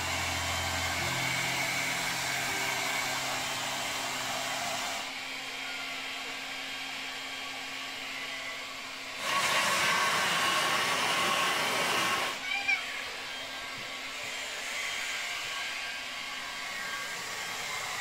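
Hand-held electric hair dryer blowing air over a wet dog's coat, a steady rushing hiss that drops back about five seconds in and comes up louder for about three seconds near the middle.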